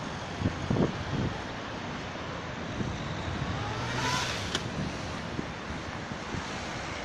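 Road traffic: a steady hum of cars driving past, with one vehicle passing louder about four seconds in.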